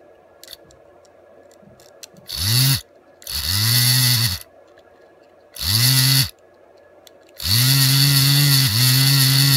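Small DC motor from a Remington electric razor, run off a 9-volt battery, whirring in four short runs. Each run spins up quickly to a steady hum and winds down again. A strip of tape on the shaft spins with it and adds a hissing flutter. The last run, near the end, is the longest, about two seconds.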